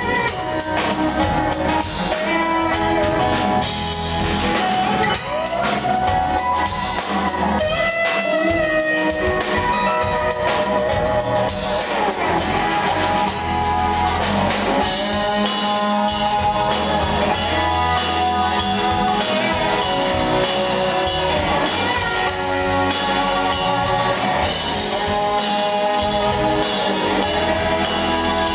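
Live band playing: banjo, electric guitars, bass guitar, keyboard and drum kit together, with a lead line of bending, gliding notes over the ensemble.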